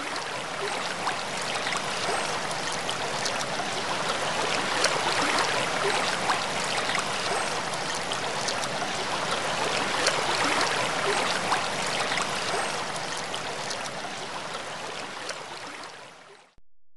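Rushing water of a stream cascade: a steady hiss of white water with small splashes through it, fading away and stopping about sixteen and a half seconds in.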